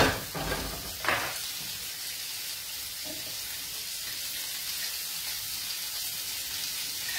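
Vegetables sizzling steadily in oil in a frying pan on a gas hob, with a brief knock about a second in.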